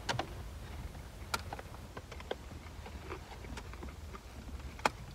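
Small scattered clicks and crunches of people eating crisp fries and a taco, over the low steady hum of a car cabin; one sharper click near the end.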